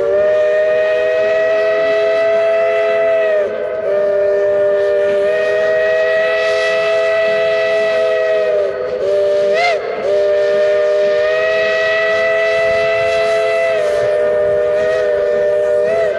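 Steam locomotive's chime whistle sounding a loud, steady chord in long blasts that run almost into one another. About ten seconds in comes one short blast whose pitch slides up and back.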